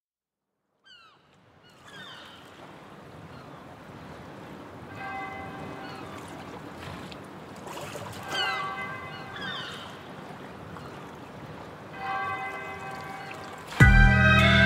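Seagulls crying in short falling calls over a steady wash of surf, with soft bell-like ringing tones every few seconds. Near the end loud music starts abruptly.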